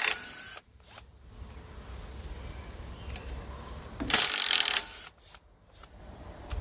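Cordless driver running in two short bursts, one right at the start and one about four seconds in, spinning out the valve-cover bolts on an 18 hp Kohler OHV engine.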